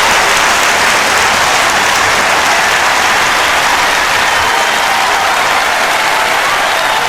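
A large crowd applauding steadily, dense clapping with some shouts and cheers mixed in.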